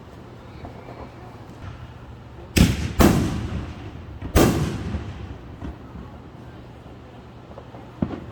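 Three loud firework bangs, the first two close together and the third about a second and a half later, each trailing off in a fading echo.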